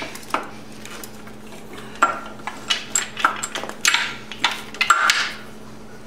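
Stock ignition coils on a Honda CB750 being worked loose and lifted out of the frame: a run of light clinks and knocks as metal and plastic parts bump together, thickest in the second half.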